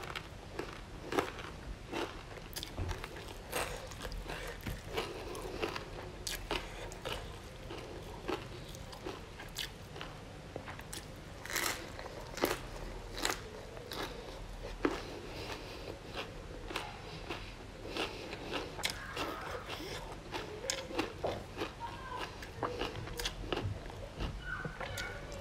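Close-up chewing and biting of crisp food, stir-fried broccoli with shrimp, fried chilies and fresh lettuce, with many short crunches spread throughout and some lip and mouth sounds.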